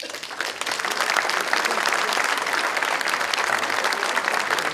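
Audience applause, swelling over the first second and then holding steady.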